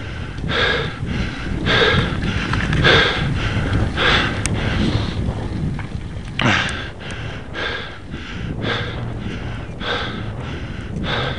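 A cyclist breathing hard, a heavy breath about once a second, from the effort of a steep climb, over a steady wind rumble on the microphone.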